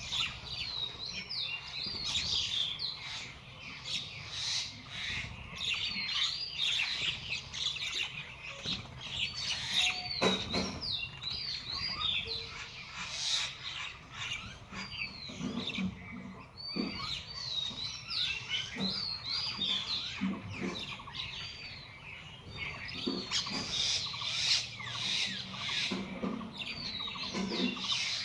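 Small birds chirping and twittering, with clusters of short swooping calls every few seconds. A few soft low knocks are mixed in.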